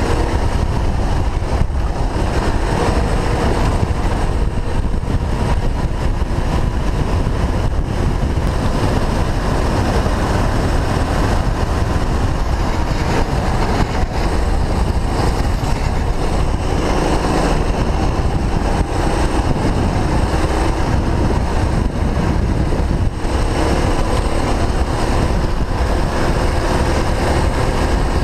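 Go-kart engine running on track under throttle, heard from a camera mounted on the kart; loud and steady, with small shifts in the engine note through the corners.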